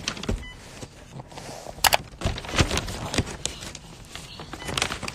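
Handling noise on a phone's microphone: irregular knocks and fabric rustling as a toddler grabs at the phone and a cloth brushes over it, with the sharpest knock about two seconds in.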